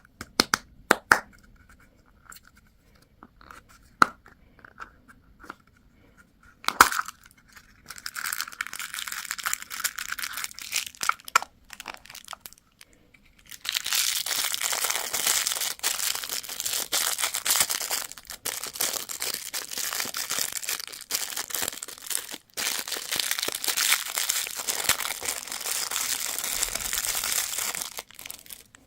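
Candy packaging being crinkled and torn open by hand. A few sharp clicks come first, then crinkling that grows into a long, dense stretch of loud rustling and tearing, broken once by a short pause.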